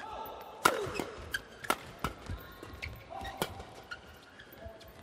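Badminton doubles rally: rackets striking the shuttlecock in a quick exchange, a sharp crack every half second to second, the loudest about two-thirds of a second in. Shoes squeak briefly on the court between hits.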